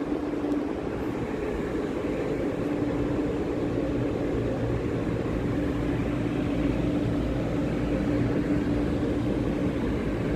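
Steady hum with a low rumble from a CTrain light-rail train standing at the station platform.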